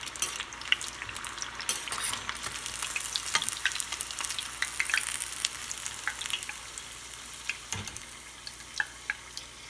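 Chicken lollipops deep-frying in hot oil in a stainless steel pot: a steady crackling sizzle full of small pops as the pieces are stirred and lifted out with a metal slotted spoon, finished frying. The sizzle eases a little in the second half, with one soft knock near the end.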